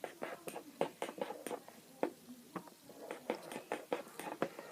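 Pens scratching and tapping on paper in short, irregular strokes.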